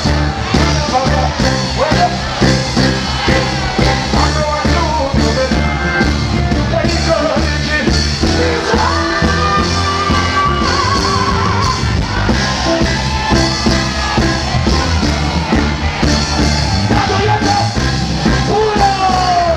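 Live reggae band, with bass, drums, keyboards and electric guitar, playing over a concert PA while a male vocalist sings into a handheld microphone. About nine seconds in he holds one long note before going back to shorter sung lines.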